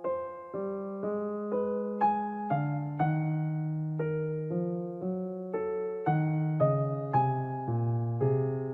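Background piano music: a slow melody of sustained notes, a new note or chord about every half second.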